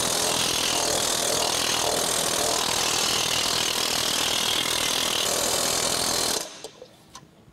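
Pneumatic planishing hammer (air hammer) running, its rapid blows on a sheet-metal bowl blending into one steady loud hammering that stops abruptly about six seconds in. It is planishing the panel, smoothing out the imperfections left by shrinking on the power hammer.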